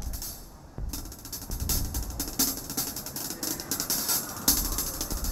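Drum kit being played fast, with strokes on toms, cymbals and bass drum; it is quiet for about the first second, then the playing comes in and grows louder.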